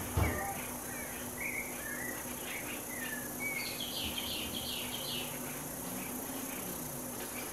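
Wild birds chirping and whistling in short calls, with a quick run of chirps about halfway through, over a steady high hiss. A brief knock comes right at the start.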